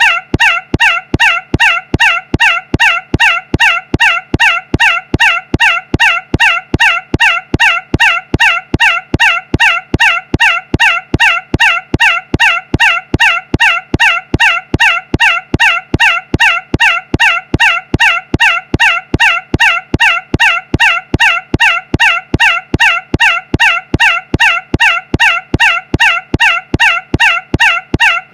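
A short, shrill squawk repeated over and over, about two and a half times a second, with perfectly even spacing like a looped clip.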